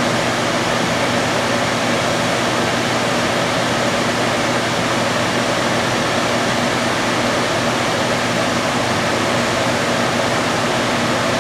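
Steady rushing hiss of a lampworking torch flame, with a faint low hum underneath.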